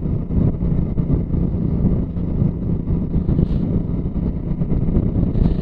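Wind buffeting the microphone while a motorcycle is ridden, a dense low rumble over the steady hum of the engine.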